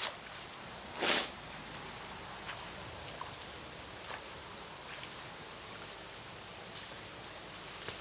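One brief swish about a second in, over a faint, steady, high-pitched hiss of outdoor background with a few faint ticks.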